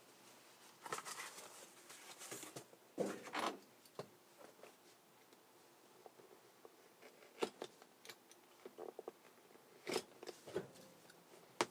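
Faint rustling and scraping of carpet felt and cardboard being handled and fitted on a truck's cab floor, with a few light clicks and taps.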